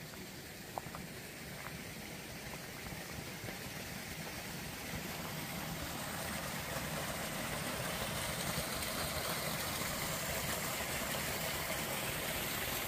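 Small mountain stream running over rocks, a steady rushing hiss of water that grows louder over the first several seconds and then holds.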